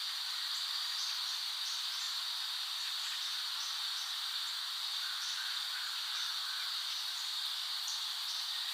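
Steady high-pitched insect chorus, a continuous shrill hiss, with short higher chirps coming irregularly about every half second.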